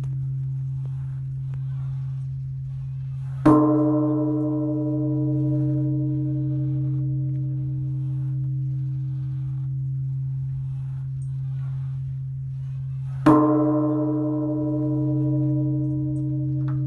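Large temple bell struck twice, about ten seconds apart, each strike a sharp hit followed by long, slowly fading ringing over a steady low hum.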